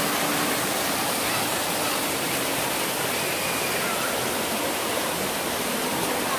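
Waterfall cascading over rocks: a steady rush of white water.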